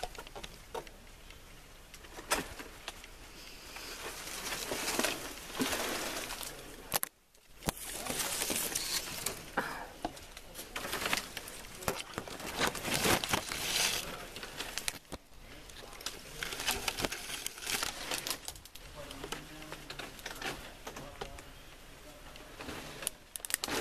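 Footsteps and brush moving through dry leaf litter and undergrowth: irregular rustling and crunching with many sharp crackles, close to the microphone. The sound cuts out briefly about seven seconds in.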